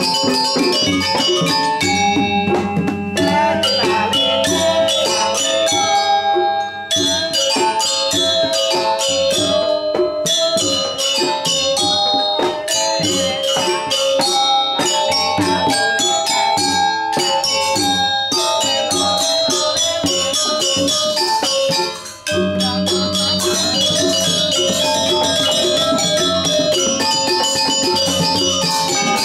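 Balinese gamelan pelegongan ensemble playing: bronze-keyed metallophones ring in rapid struck notes over a pair of kendang drums. The music breaks off for a moment about three-quarters of the way in, then resumes.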